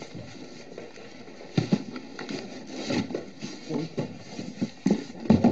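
Handling noise from unpacking a box: rustling with a scatter of short knocks and clunks as items are pulled out and set down, busier and sharper in the second half.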